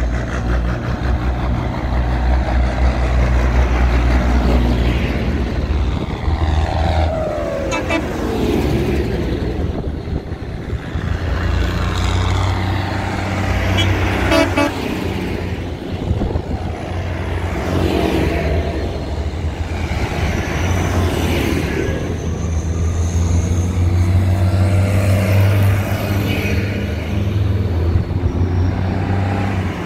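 A procession of diesel tractors driving past one after another, engines running steadily with gliding pitch as each passes. Short horn toots sound among them, the clearest about halfway through.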